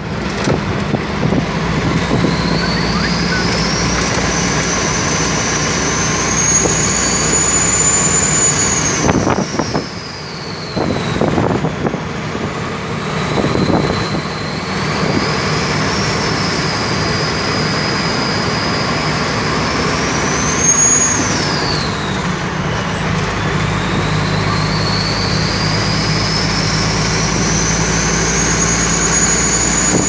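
Semi truck's diesel engine with a loud turbocharger whistle heard from inside the cab, the whistle brought on by pulling a full load. The whistle climbs in pitch as the truck accelerates, falls away twice and climbs again each time, over a steady low engine drone.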